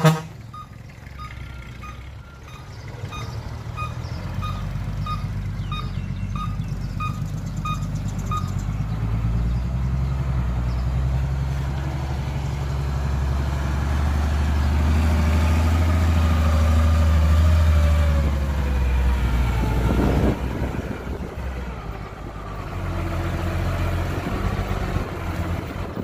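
Heavy diesel earthmoving machinery at work: a reverse alarm beeps steadily, about three beeps every two seconds, for the first eight seconds or so over a heavy diesel engine. The engine then builds to a deep, strong rumble under load before easing off about eighteen seconds in. A sharp knock at the very start and a short burst of noise about twenty seconds in.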